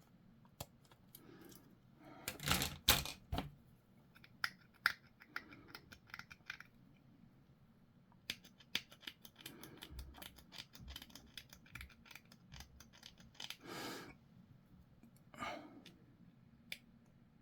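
Hobby side cutters snipping small plastic model parts off the sprue: a few sharp snips, the loudest cluster about two and a half seconds in. Between them come faint clicks and taps of the small plastic pieces being handled.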